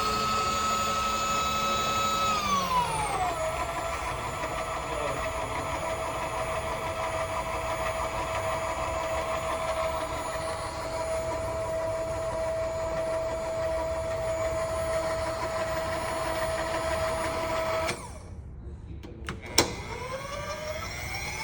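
Electric power feed motor on a milling machine, a Servo unit, running with a steady whine. It drops to a lower pitch about three seconds in and holds there, then cuts off; a single sharp click follows, and the whine starts rising again near the end.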